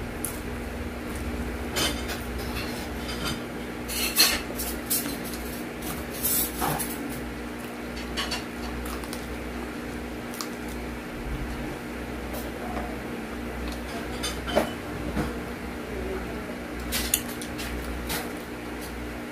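Close-up eating sounds: crunchy bites and chewing of a crispy fried pork chop, irregular crackling crunches, the loudest about four seconds in, over a steady low hum.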